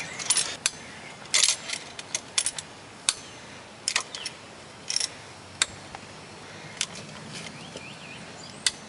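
Irregular metallic clicks and clinks as vise grips (locking pliers) are clamped and worked on a 2005 Cadillac DeVille's front brake caliper to press the caliper piston back, metal tapping on metal.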